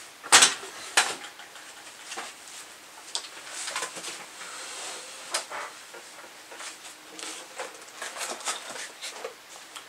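Two sharp metallic clunks within the first second as a metal ammo can is put away, followed by light taps, rustles and handling noises of a small cardboard box being picked up and turned over.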